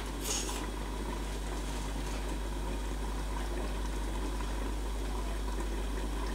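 Tomato-based pork stew simmering under a glass lid in a pan on a tabletop burner: a steady, even hiss of simmering.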